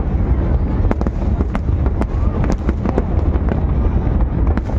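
Fireworks display: many shells bursting in quick, overlapping succession, sharp bangs and crackles over a constant low rumble.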